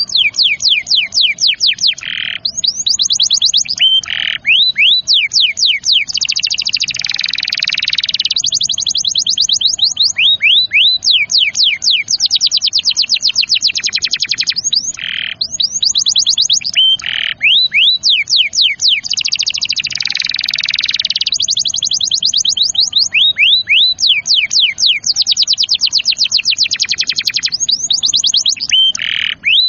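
Domestic canary singing a long rolling song: fast trills of repeated downward-sweeping notes, broken by short held notes and two brief harsher, buzzier passages.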